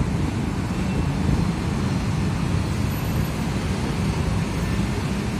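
Steady road traffic noise from cars and motorcycles passing on the road below.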